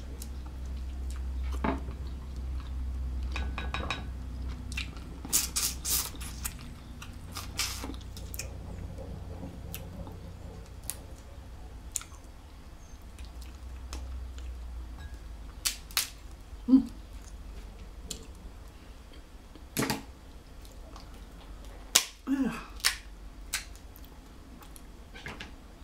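Eating snow crab: chewing, with scattered sharp cracks and snaps of crab shell being pulled apart and wet smacks from licking fingers. The louder snaps cluster a few seconds in and again near the end.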